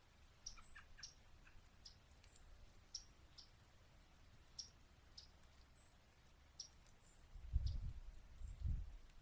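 Small songbirds, mostly yellow-rumped warblers and American robins, giving short, sharp chip notes scattered irregularly, about one every half second to second. A few lower notes come early on. Two low rumbles come near the end.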